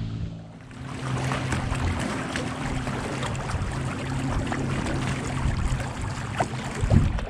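Water splashing and trickling against a kayak on the move, a dense watery hiss with fine clicks that starts about a second in, over a steady low hum. A low knock sounds near the end.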